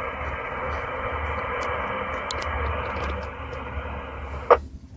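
Mobile FM ham radio speaker hissing steadily as the repeater's carrier hangs open with no one talking, cut off about four and a half seconds in by a short squelch-tail crash as the repeater drops.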